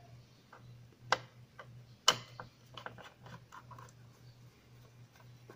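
Screwdriver working the mounting screws of a plasma TV's Y-SUS board: two sharp metallic clicks about a second apart, the second the loudest, then a run of lighter ticks as the screw is turned out.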